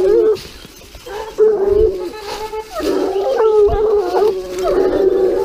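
Pack of Gascon Saintongeois hounds baying in long, drawn-out howls, several voices overlapping, as they give tongue on wild boar scent. A short lull early in the first second, then the baying picks up again and grows fuller.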